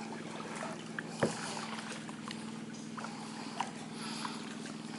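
A longtail boat's engine running steadily, heard as a low even hum. Light ticks are scattered through it, with one small knock about a second in.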